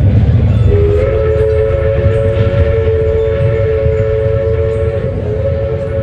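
Locomotive horn sounding a long, steady multi-note chord over the low rumble of a running train. The horn comes in about a second in, breaks off briefly near the end and sounds again.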